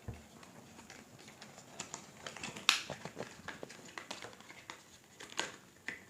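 Packaging being handled as a small adapter is taken out of its box: light crinkling and rustling with scattered small clicks and taps, one sharper snap a little under three seconds in.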